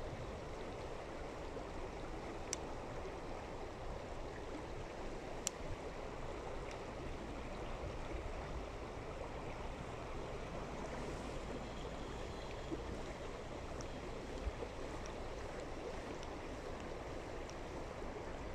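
Steady rushing outdoor noise, with a few short sharp clicks, the clearest about two and a half and five and a half seconds in.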